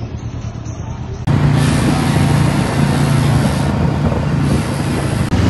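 Quieter engine idling in city traffic for about a second, then a sudden jump to go-kart engines running steadily at speed with loud wind rush on the microphone.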